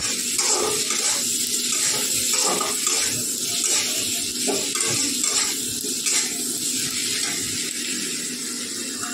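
Onion-tomato masala sizzling in a black kadai as a metal spatula stirs it, with scrapes of the spatula against the pan.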